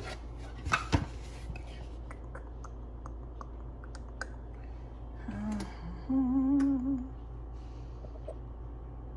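A woman humming a short held note about six seconds in, just after a brief low murmur. A few light clicks and knocks come about a second in, over a steady low background hum.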